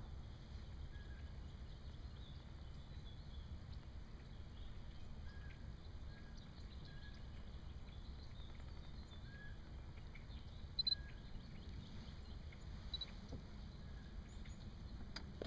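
Quiet open-air lake ambience: a low steady rumble with faint scattered bird chirps, and a brief high-pitched chirp about eleven seconds in.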